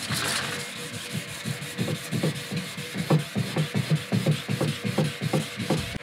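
Fibreglass kayak gel coat being wet-sanded by hand with a folded pad of fine 1200-grit wet-and-dry paper: quick back-and-forth rubbing strokes, about four a second, fairing a crack repair smooth.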